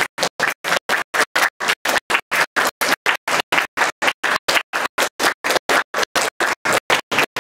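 Audience applauding, but the sound cuts in and out about six or seven times a second, going fully silent between each short burst: a fault in the recording.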